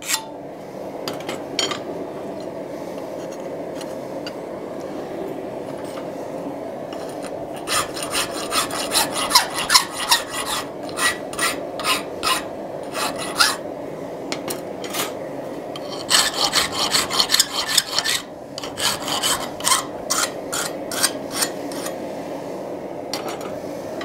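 Hand file cutting across the edge of a forged metal hasp clamped in a filing vise, easing a light bevel on the long edge and finial. A steady rasp at first, then runs of quick rhythmic strokes with brief pauses between them.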